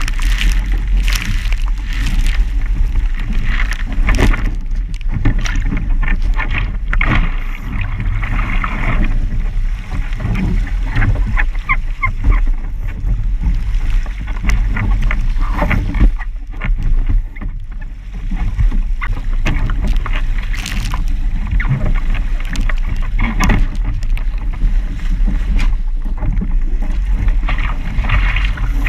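A Musto Skiff sailing dinghy under way in a blow: wind buffets the onboard camera's microphone with a heavy rumble, while water rushes and splashes along the hull. Short knocks and splashes come through as the boat is tacked.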